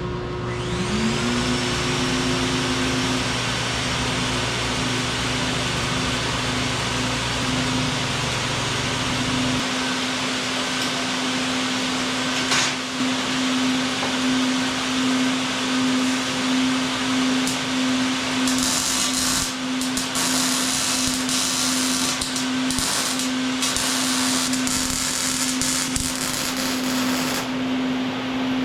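A handheld power tool's motor spins up and then runs steadily with an even whine and hiss. In the second half, patchy bursts of harsher hiss come and go on top of it.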